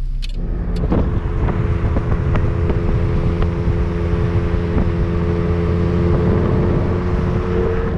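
Toyota MR2 AW11 driving along, heard with the microphone held outside the car: a steady rush of wind and road noise with a steady engine hum that sets in about half a second in.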